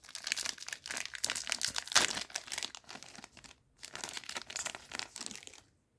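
Trading card booster pack wrapper being torn open and crinkled by hand, a run of crackling with a short pause about halfway and a sharp crackle about two seconds in, stopping shortly before the end.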